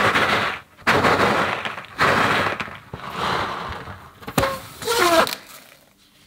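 Rubber balloon pressed and squished into glossy slime in a plastic tub: loud wet squelching bursts about once a second. About four and a half seconds in there is a sharp snap, then a short squeaky whine that falls in pitch.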